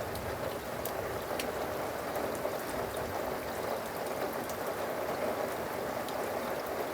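Steady rain falling in a thunderstorm, with a few louder drops ticking close by.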